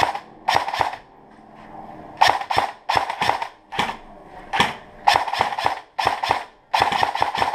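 Airsoft electric rifle firing in short bursts of two to four shots, about eight bursts with pauses between them.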